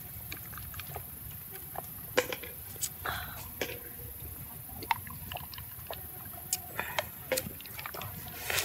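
A man gulping water from a bamboo tube, the water sloshing inside it, with scattered sharp clicks over a steady low background.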